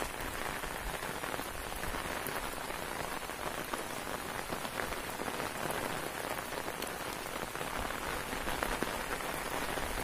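Steady rain falling on a wet road and the plants beside it: an even hiss sprinkled with many small drop ticks.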